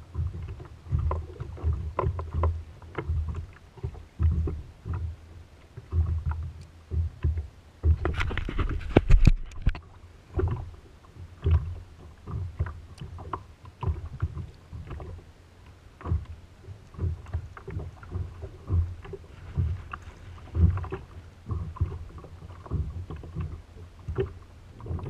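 Small waves slapping and lapping against the hull of a sit-on-top kayak in irregular low thuds, with scattered clicks and knocks, and a louder stretch of slapping and handling about eight seconds in.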